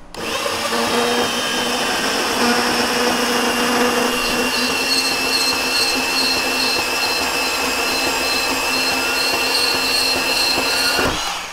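Ryobi P590 cordless band saw running steadily as its blade cuts through 5/8 inch steel rebar, with a steady high whine over the rasp of the blade on steel. The motor starts at once and stops about a second before the end.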